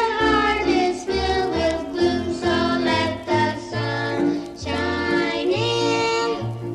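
Children singing a gospel song together over instrumental accompaniment with a bass line.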